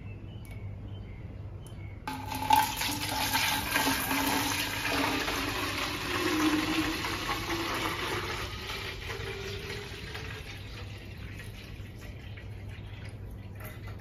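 Water poured into a large plastic water bottle. The stream starts suddenly about two seconds in, and its pitch rises as the bottle fills. It gets quieter toward the end.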